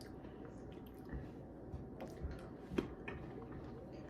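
Quiet room with a few faint, scattered soft clicks and taps.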